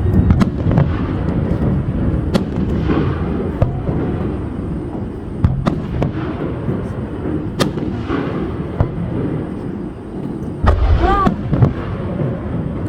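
Fireworks display: shells bursting overhead in a string of sharp bangs and cracks over a continuous low rumble of echoing booms, with a heavier boom about eleven seconds in.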